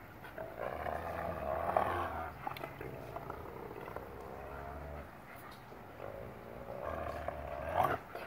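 Large wolf–dog hybrids growling at each other as they wrestle and mouth at one another's necks. The growls come in rumbling bouts, loudest about two seconds in and just before the end.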